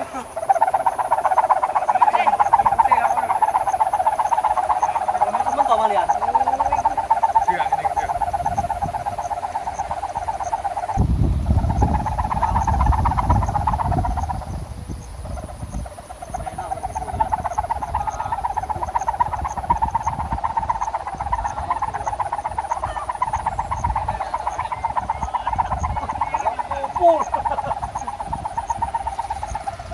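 Kite hummer (sendaren) with a gift-ribbon reed buzzing in the wind, a steady, rapidly pulsing 'ngukuk' drone that fades briefly near the middle and then comes back. Wind rumbles on the microphone from about a third of the way in.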